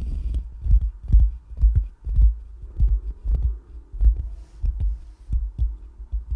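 Fingers scratching directly on a microphone, picked up as a series of dull low thumps, unevenly spaced at roughly two a second.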